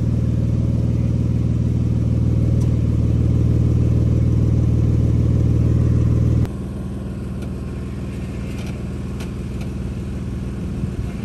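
Jeep Wrangler JK's engine running steadily at low revs, heard close up. About six and a half seconds in, the sound drops suddenly to a quieter, more distant run of the engine, with a few light clicks.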